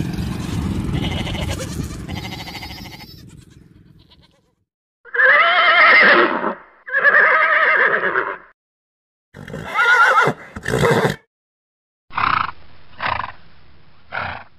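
Horses neighing: two long whinnies with a wavering pitch, then a few shorter neighs. Before them, the sheep flock's sound fades out over the first four seconds.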